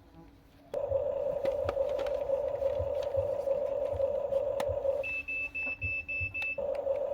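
Small electric motor of a Huina radio-controlled toy construction vehicle whining steadily with light ticking, pausing about five seconds in while a high electronic beeper sounds six quick beeps, about four a second, before the motor starts again.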